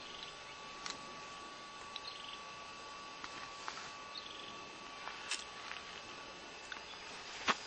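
Quiet outdoor ambience: a faint steady high tone, a few soft chirps and scattered small clicks.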